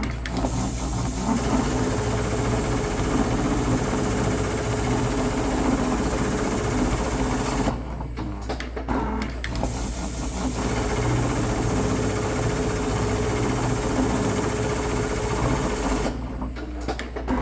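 Dürkopp Adler 911-210-6055 CNC automatic lockstitch sewing unit (867-class head) running a programmed seam. The stitching noise runs continuously and drops back twice, about eight seconds in and near the end.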